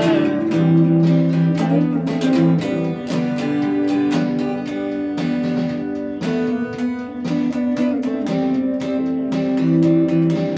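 Guitar played without singing: strummed chords in a steady rhythm, with sustained notes ringing over them.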